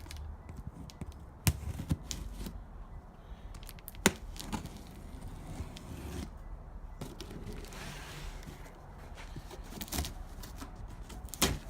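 A small parts package being carefully cut and pried open by hand: a few sharp clicks and snaps, the loudest about four seconds in, with scraping and rustling between them.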